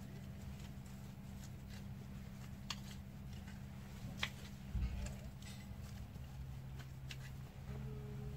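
Gloved hand working loose soil in a planting hole: a few sharp clicks of stones or clods and a dull thump about halfway through, over a steady low hum.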